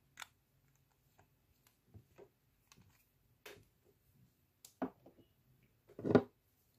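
Quiet handling sounds: a sharp click as the nail polish brush cap goes back onto its glass bottle just after the start, then scattered light taps and knocks on the table, the loudest a short cluster about six seconds in.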